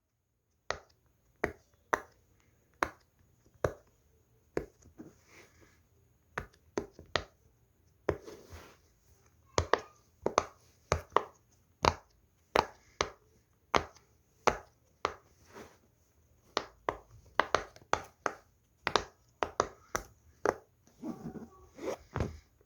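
Silicone pop-it fidget toy bubbles being pressed one after another, each giving a sharp pop; about one a second at first, quicker and more irregular from about eight seconds in.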